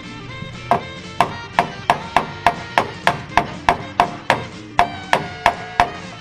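Small hammer tapping steel sheet metal against a dolly held behind it, about three sharp metallic strikes a second, each ringing briefly, stopping just before the end. The strikes flatten the pulled-out metal around a stripped screw hole back down so a screw will bite again.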